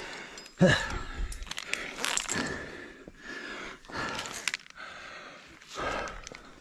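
A person breathing hard with exertion, in heavy breaths every second or two, with a short grunt about a second in.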